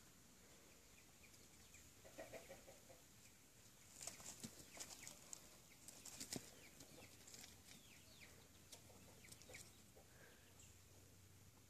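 Near silence: faint outdoor ambience with scattered soft rustles and clicks, busiest a few seconds in, and a few faint bird chirps.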